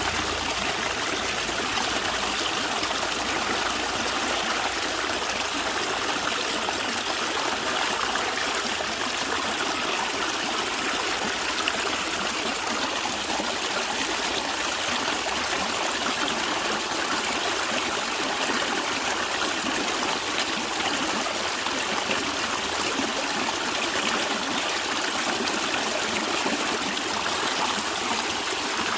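Stream of water running and gurgling steadily over stones, a constant rushing with no breaks.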